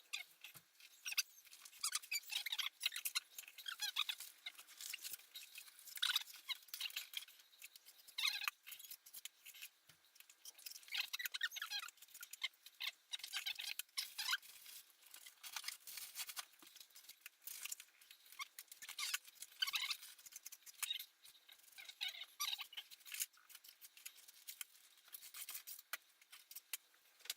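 Wet sponge being wiped and dabbed over old brickwork to damp it before mortaring: faint, irregular, high-pitched squeaks and scrapes in short strokes every second or so.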